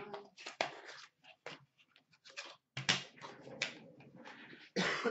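Hands opening a small cardboard pack box and handling a trading card in a hard plastic holder: irregular rustling, scraping and sharp clicks, the loudest scrape near the end.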